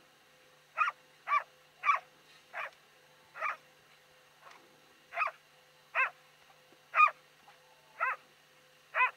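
A dog barking at a goose it holds at bay, about ten short barks spaced irregularly, half a second to a second apart.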